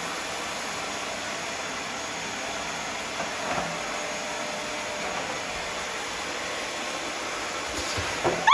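Vacuum cleaner running with a steady rushing hiss and a faint hum. Near the end a short louder sound comes, then the motor cuts off and winds down.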